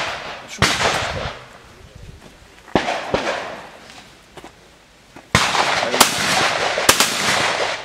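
Shotgun shots fired at clay targets, five in all, each with an echoing tail. The last three come close together, about a second or less apart.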